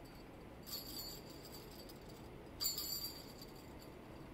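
Small jingle bells on a Christmas ornament shaken by hand in two short jingles, the second louder.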